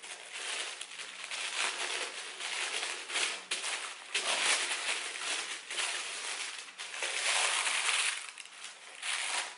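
White tissue paper crinkling and rustling unevenly as it is unfolded and pulled back inside a shoebox.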